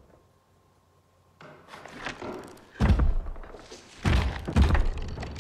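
Horror film soundtrack: a hush at first, then rising noise and heavy, deep thuds, one about three seconds in and a cluster a second later.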